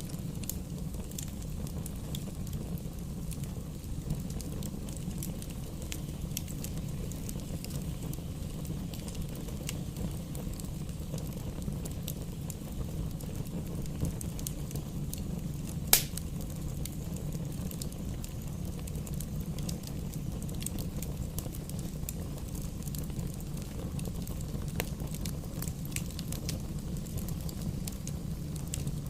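Fire burning in a fireplace: a steady low rumble of flame with scattered crackles throughout, and one sharp, much louder pop about halfway through.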